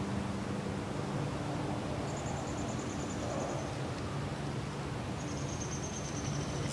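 Steady outdoor boat ambience with a low hum underneath. Twice, from about two seconds in and again near the end, comes a faint high whir, fitting a spinning reel retrieving line.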